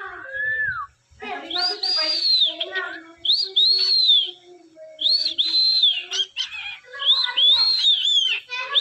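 Cockatiel whistling a run of high notes, each rising and falling, with chattery sounds between them; the notes come quicker near the end.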